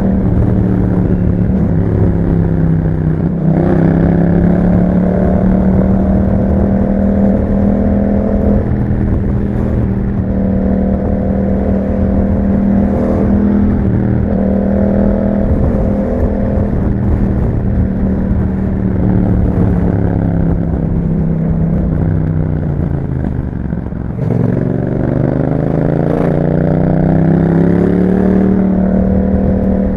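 2021 Yamaha MT-07's parallel-twin engine breathing through an Akrapovic exhaust with a dB killer, pulling at steady revs while riding. Near the end the revs drop away, then rise again as the bike accelerates.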